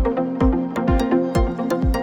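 Electronic background music with a steady beat: kick-drum thumps about three times a second, ticking hi-hats and sustained synth notes.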